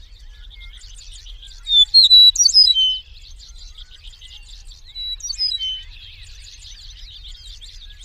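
Eastern meadowlark singing two phrases of whistled notes that slide up and down, a loud one about two seconds in and a softer one about five seconds in. Beneath them runs a steady background of faint high chirping.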